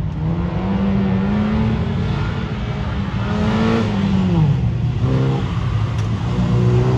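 Honda Civic Ferio (EK3) sedan's engine revving hard as it is driven through a gymkhana cone course, the engine note rising, falling away about four seconds in, then climbing again near the end.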